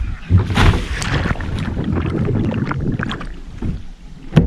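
Water splashing and sloshing close to the microphone, with rough handling knocks and one sharp knock near the end.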